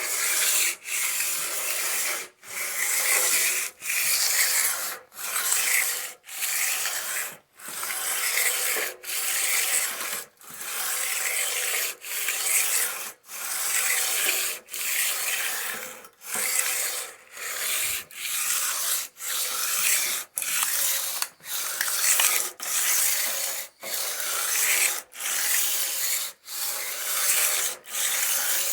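Abrasive rubbed in long back-and-forth strokes along a metal lathe rail to polish it: a steady scratchy hiss, broken by a short pause at each change of direction, about four strokes every three seconds.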